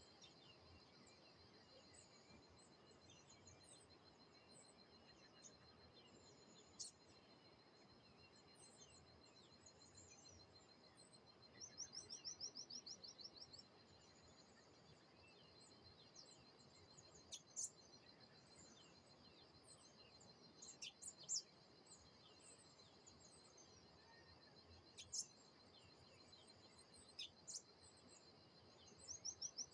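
Faint birdsong: scattered short, high chirps from several birds over a steady high trill. A fast run of repeated rising notes stands out about twelve seconds in and again near the end.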